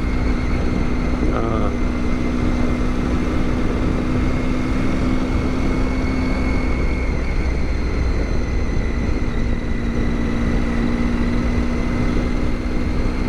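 Motorcycle riding at a steady cruising speed: a constant engine hum under steady wind and road noise.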